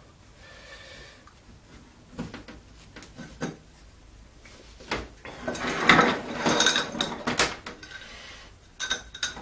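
Handling noises as electrical flex is pulled out through a pottery lamp base: scattered clicks and rubs, busiest from about five and a half to seven and a half seconds in.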